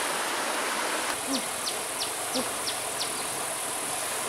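A rushing stream for about the first second, then, after it drops away, a steady high insect drone with a run of about six quick falling chirps, roughly three a second.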